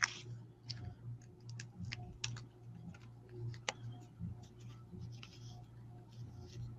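Scattered small clicks, taps and brief rustles of paper and craft pieces being handled at a desk, over a low steady hum.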